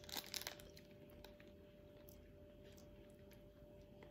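Near silence: faint room tone with a steady hum. In the first half second there are a few soft clicks of a piece of sticky spiced dried fruit being bitten.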